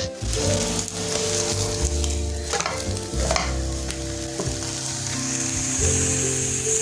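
Stuffed paratha frying in oil in a non-stick pan, sizzling steadily, with a few short scrapes of a nylon spatula as it is turned over.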